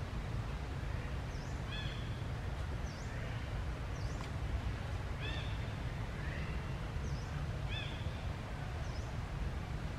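Short, high animal chirps, a handful of quick calls spread over several seconds, over a steady low rumble.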